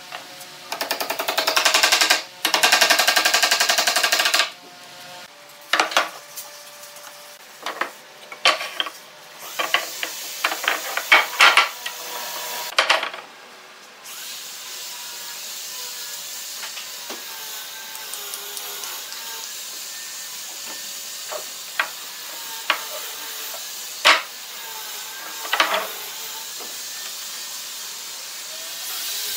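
A power tool runs in a loud buzzing burst for about four seconds near the start. Then come a string of sharp knocks and clicks as wooden boards are handled, followed by a quieter stretch broken by a few single clicks.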